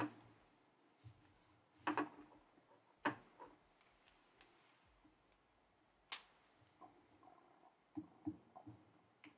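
Quiet room tone broken by about five short, faint clicks at irregular intervals.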